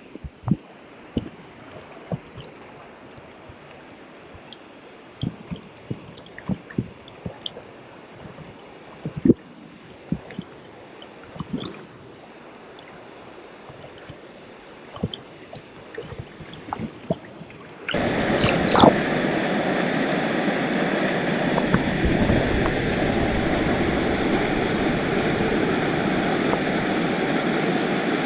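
Scattered small clicks and knocks over a low, even background. About two-thirds of the way in, loud, steady rushing water from a waterfall takes over abruptly.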